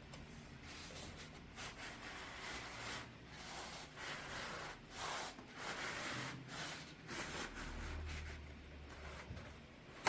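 Packaging being handled and opened by hand: soft, irregular rustling and scraping that comes and goes in short swells, with a brief sharp tap at the very end.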